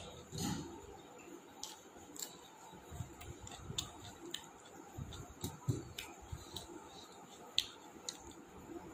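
A person eating close to the microphone: irregular chewing with many small, sharp mouth clicks and soft thumps.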